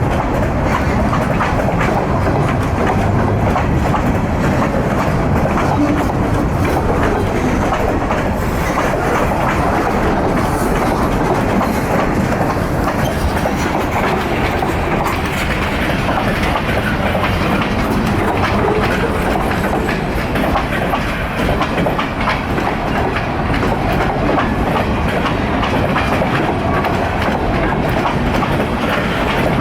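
CN freight train's cars rolling past, with a steady clickety-clack of wheels over rail joints.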